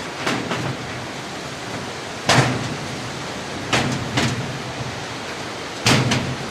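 Steel locker shelf being fitted into the cabinet: a series of sharp metal knocks and clanks at uneven intervals, the loudest a little over two seconds in and near the end, over a steady background hiss.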